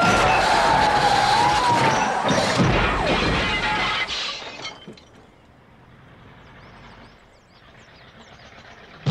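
Police car sirens wailing over a car crash: crunching metal and shattering glass as patrol cars pile into an overturned police car. The crash dies away about four and a half seconds in, leaving quiet open air with faint high chirps.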